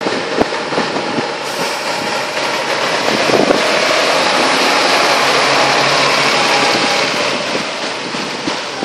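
Scania P340 truck's diesel engine idling up close, a steady noise that grows louder in the middle as the cab front is passed.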